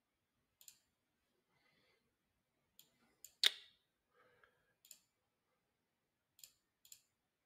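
Computer mouse button clicks, about seven scattered single clicks, the loudest about halfway through.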